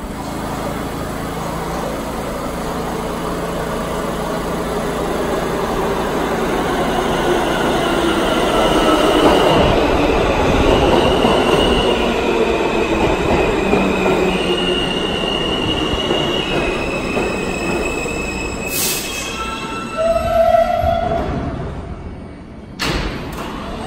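R160 subway train pulling into the station and braking to a stop. The running rumble grows louder as the cars pass, then high whining tones shift in pitch in steps as the train slows. A few sharp clicks and a brief tone come near the end as it halts.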